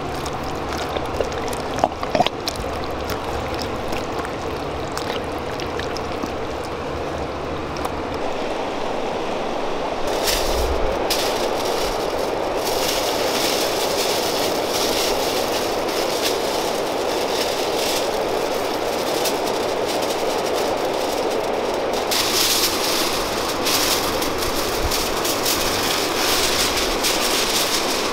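Steady rushing of a fast-flowing river, with a few faint clicks about two seconds in and a brighter hiss joining from about ten seconds in.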